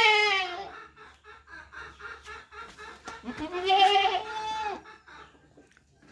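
Goat bleating: a loud bleat fades out in the first second, and a second long, wavering bleat comes about three seconds in and lasts about a second and a half. Fainter short calls can be heard in between.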